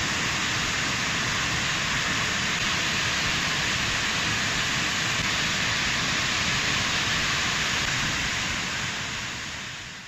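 A waterfall running: a steady rush of water plunging down a rock face, fading out near the end.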